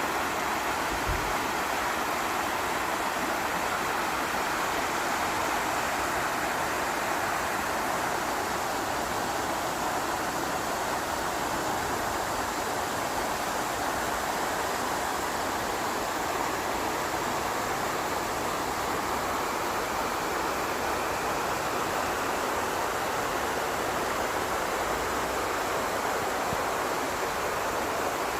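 Waterfall in a mountain stream valley, water falling and rushing with a steady, even roar.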